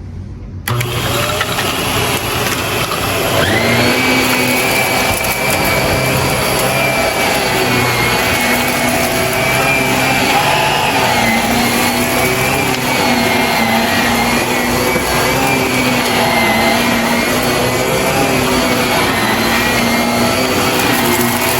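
Shark vacuum cleaner running. Its motor whine rises in pitch about three seconds in, then holds with a slightly wavering pitch as it works.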